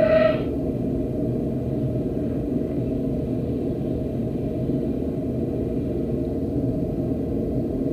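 The tail of a crow's caw played in reverse, cut off a fraction of a second in, then a steady low rumble and hiss from the cassette recording with no calls.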